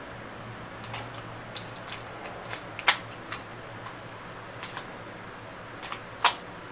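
Small plastic clicks and scrapes of a battery pack being fitted into a Sony Handycam HDR-CX190 camcorder, with a sharper click about three seconds in and another near the end.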